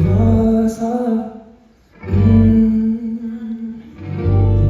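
A man singing a line of a Korean pop ballad live over guitar accompaniment through the venue's sound system. The music drops briefly about one and a half seconds in, then the sustained chords come back.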